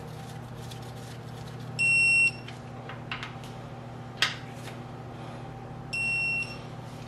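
Two short electronic beeps about four seconds apart, the first louder than the second, with a single sharp click between them, over a steady low hum.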